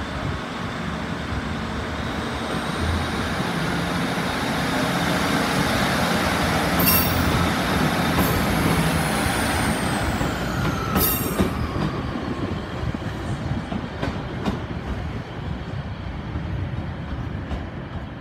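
Northern Class 156 two-car diesel multiple unit running past and pulling away, its diesel engines and wheels building to a loud rumble and then easing off. Sharp clicks come twice, about 7 and 11 seconds in, and a high whine falls in pitch as the unit passes.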